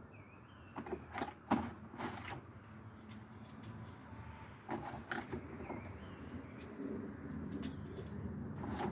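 Scattered light clicks and knocks from handling a plastic fuel-line connector while it is wetted to make it flexible, loudest in the first couple of seconds and again about five seconds in.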